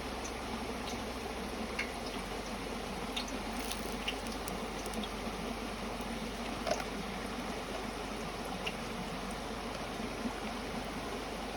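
Steady trickle of running water, with a few faint short clicks scattered through it.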